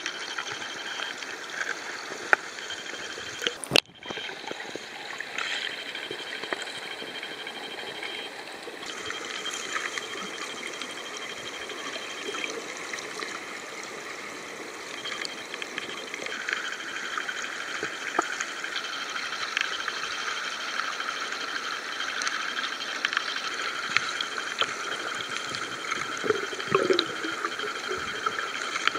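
Steady rushing and bubbling of water, muffled as heard by a camera held underwater in a flowing spring pool, with a sharp click just before four seconds in and scattered small knocks.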